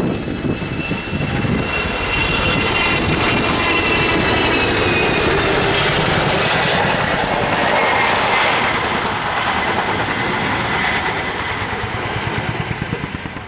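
Boeing Chinook HC4 tandem-rotor helicopter flying past low: the rapid beat of its two rotors under the high whine of its twin turboshaft engines, easing off near the end as it draws away.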